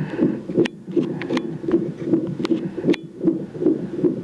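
Fetal heart monitor's Doppler speaker playing an unborn baby's heartbeat in a non-stress test: a fast, even pulsing at about two and a half beats a second, a baseline near 150 beats a minute, with a few sharp clicks among the beats.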